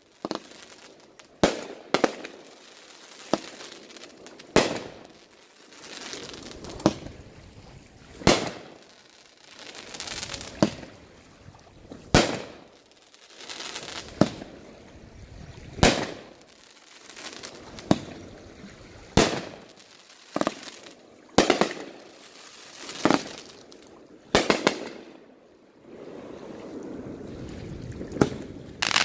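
Aerial fireworks going off in a steady series, a sharp bang every second or two, with crackling and fizzing between the shots.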